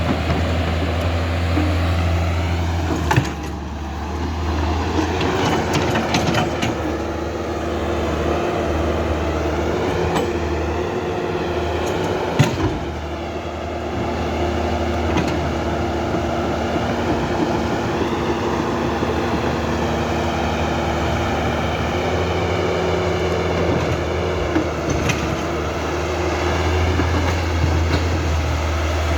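Small electric motors and plastic gearboxes of remote-control toy construction vehicles running under load: a steady drone with a whine that wavers in pitch, and two sharp clicks, one about three seconds in and another near the middle.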